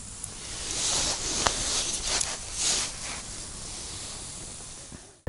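Rustling and hissing close to the microphone in a few soft swells, with a couple of faint clicks, from the angler's hands and clothing moving as he handles the ice-fishing rod over the hole.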